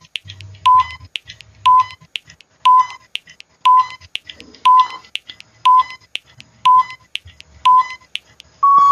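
Countdown timer sound effect beeping once a second, with faint ticking between the beeps, ending in one longer, slightly higher beep as the count reaches zero.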